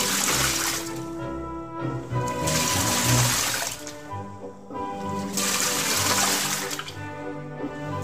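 Hitachi BeatWash washing machine agitating a load: water swishes in a surge about every three seconds. Background music with sustained notes plays underneath.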